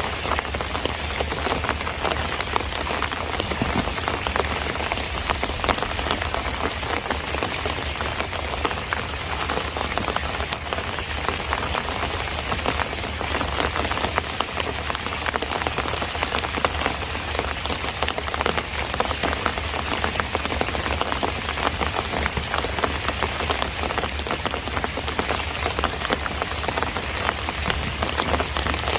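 Steady heavy rain, a dense patter of countless drops hitting surfaces, even throughout.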